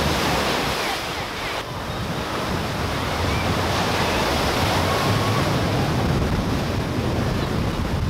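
Ocean surf breaking and washing over shallow sand: a steady rush of waves.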